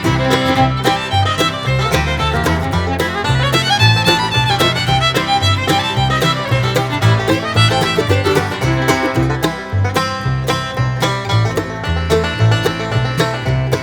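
Upbeat bluegrass music with fiddle and banjo over a bouncing bass line.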